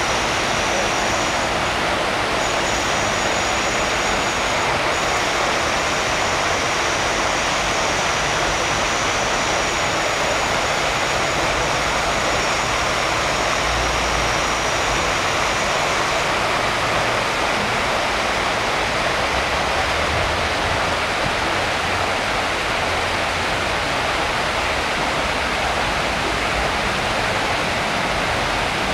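Steady rush of water splashing down in a large stone public fountain, the Fontaine Saint-Sulpice, with a constant level throughout.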